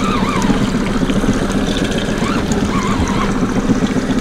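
Boat's outboard motor running steadily, a low even drone.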